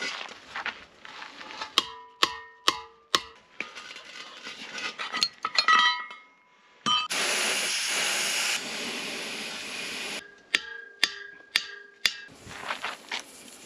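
A hammer striking a steel wrench on a gas cylinder's valve, a series of sharp metallic clanks that ring briefly. Between the two groups of strikes, a loud steady hiss lasts about three seconds.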